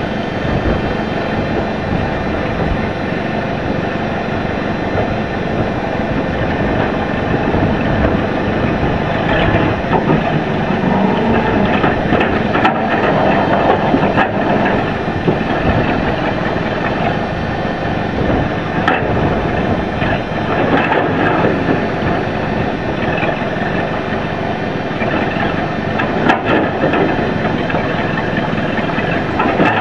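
An engine running steadily throughout, with a few sharp metallic clanks scattered through it.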